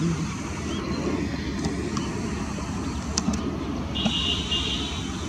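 Steady rumble of distant road traffic, with a short, flat high bird call about four seconds in.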